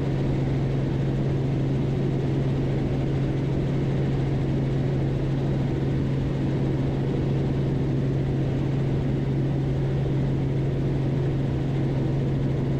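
Robinson R44 helicopter in flight at steady climb power, heard inside the cockpit: an even engine-and-rotor drone with a strong low hum that holds without change.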